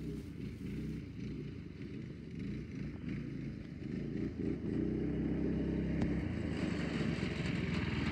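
Small single-cylinder gas engine of an off-road go-kart running steadily, growing louder as the kart comes closer and passes close by near the end.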